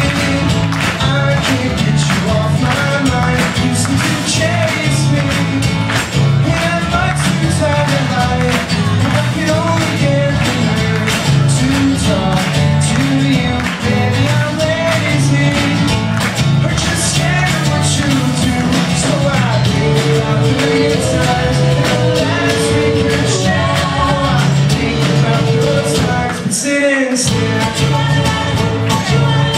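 Live band performing a song, electric guitar and band backing lead and harmony vocals. The low end drops out briefly near the end before the band comes back in.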